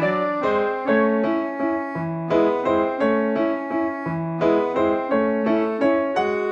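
Background piano music: a gentle melody of struck notes that ring and fade, a new note about twice a second.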